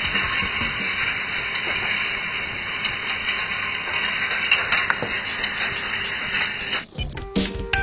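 Ball-bearing roller coaster running: ball bearings rolling along copper-wire rails with the motor-driven lift, a steady rushing hiss with faint clicks. It cuts off sharply near the end and music starts.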